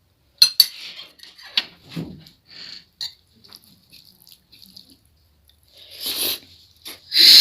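Close-miked eating: biting into and chewing a mouthful of meat, with two sharp clicks about half a second in and louder bursts of wet chewing near the end.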